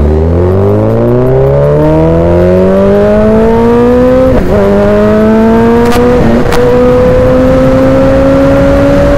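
Suzuki Hayabusa engine accelerating hard through the gears, its pitch rising steadily. It dips briefly at two upshifts, about four and a half and six and a half seconds in, with sharp cracks around the second shift.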